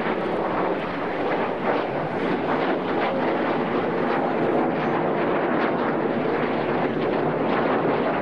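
Several BAE Hawk T1 jets flying overhead in formation, their Adour turbofans making a steady rushing jet noise.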